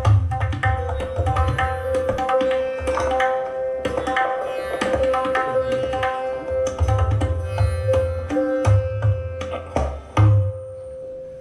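Percussive music played back through a homemade speaker during a sound test: deep bass beats and quick drum strikes over a steady held note, easing off near the end.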